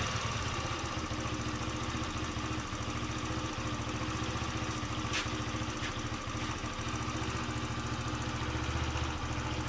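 Small scooter engine idling steadily through its aftermarket silencer, just after its carburettor has been adjusted. There is one brief click about halfway through.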